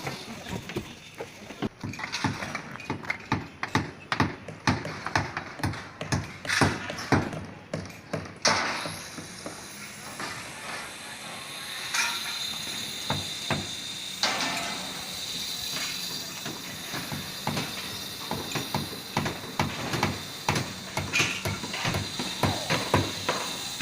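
Construction work: irregular knocks and metallic clanks, coming thick in the first nine seconds or so, then sparser over a steadier background noise.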